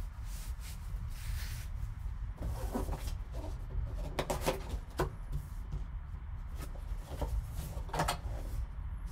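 Cardboard trading-card box being opened and handled by gloved hands: a series of short scrapes, crinkles and taps as the flaps are opened and the contents pulled out, over a steady low hum.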